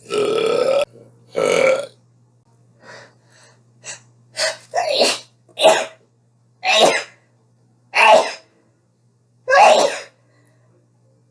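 A person belching loudly: two longer, pitched belches, then after a short pause a run of about six short, sharp bursts roughly a second apart.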